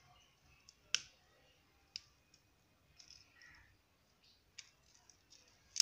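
Circlip pliers snapping a steel circlip onto a Honda CD 70 kick shaft: a few sharp metallic clicks about a second apart, the loudest near the end.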